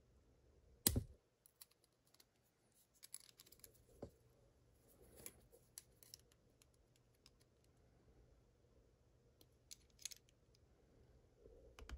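Small metal clicks and scrapes of hand tools working at a padlock's core retaining clip, with one sharp click about a second in and scattered lighter clicks after.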